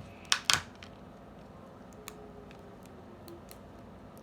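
Two sharp clicks or taps about half a second in, followed by a few faint ticks: small craft pieces being handled on a table.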